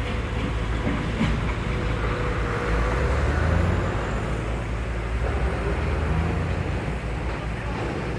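Heavy construction machinery running steadily at road-repair work, a deep engine rumble with a couple of knocks, swelling a little about three seconds in.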